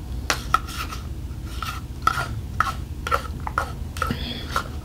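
Spoon scraping and clinking against a bowl in a run of short, irregular strokes, about three a second, as food is scooped up and eaten.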